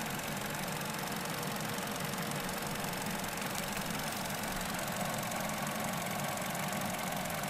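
Vauxhall Corsa 1.4 four-cylinder petrol engine idling steadily at operating temperature and running sweet on its new coil pack: the cylinder 4 misfire is cured.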